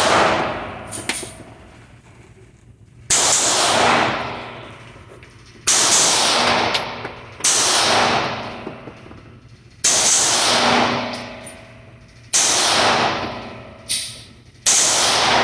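Gunshots fired one at a time at a shooting range: six shots, a second and a half to three seconds apart, each followed by a long echoing decay.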